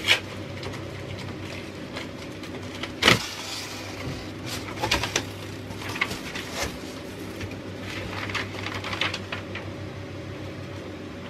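Cardboard shipping box being opened and its packing handled: scattered rustles and light knocks of cardboard and paper, with one sharp knock about three seconds in, over a steady low hum.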